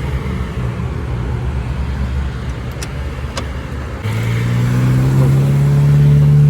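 A motor vehicle's engine running steadily, with two sharp clicks midway; about four seconds in it gets louder, its note rising slightly as it revs.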